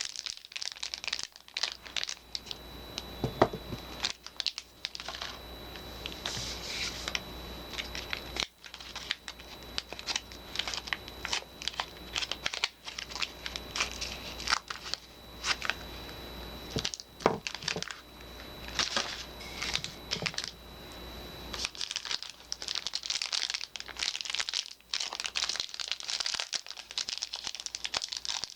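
Soap packaging being crinkled and torn open by hand: a dense run of irregular crackles and rustles, with a sharper crack a few seconds in.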